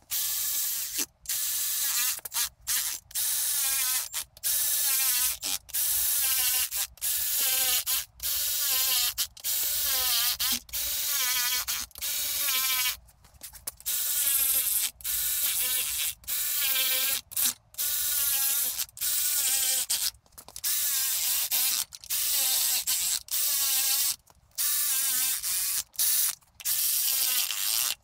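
Cordless electric ratchet running in oil pan bolts on a BMW N55 engine block, in short trigger bursts of about a second each, one after another. The motor whine wavers in pitch within each burst.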